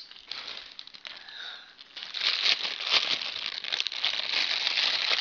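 Clear plastic bag of marshmallows crinkling as it is handled and opened, quieter at first and louder and more continuous from about two seconds in.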